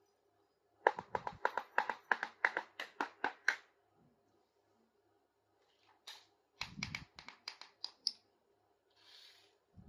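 Small plastic toy kitchen pieces being handled, with two runs of quick light clicks and taps, about four a second, the first starting about a second in and the second about two-thirds of the way through, then a short soft rustle.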